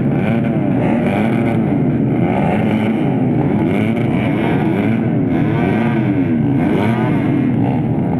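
A pack of motocross dirt bikes revving their engines together at the start line, many engines rising and falling in pitch over one another without a break.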